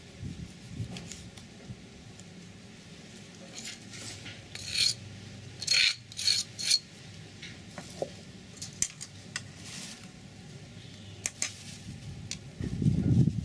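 Kitchen utensils knocking on tableware: a knife on a wooden chopping board and a metal spoon clinking and scraping in ceramic bowls, a quick cluster of sharp ringing clinks about halfway through, then lighter ticks. A louder low rumble comes near the end.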